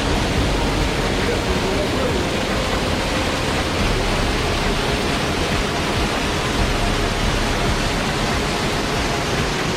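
Waterfall rushing steadily: an even, continuous wash of falling water.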